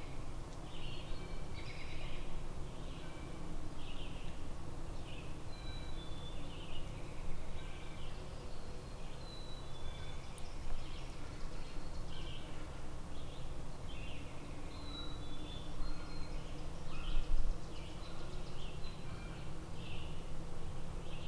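Several small songbirds chirping and singing in the woods, short notes coming every second or so, over a steady low rumble.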